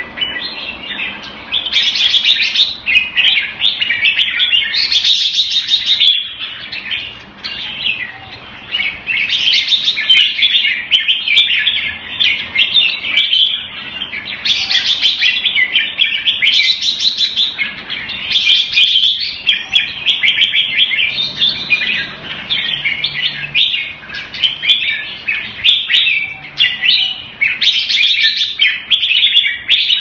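Red-whiskered bulbul song: a near-continuous run of quick chirping phrases, with louder bursts every few seconds.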